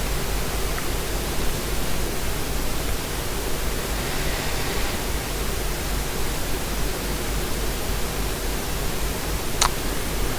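Steady hiss with a low hum underneath, and a single sharp click near the end.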